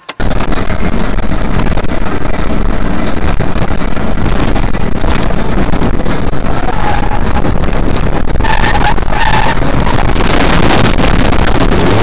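Loud, steady driving noise of a car, road and wind rumble picked up by a cheap dashcam microphone, with a few short higher tones about two-thirds of the way through.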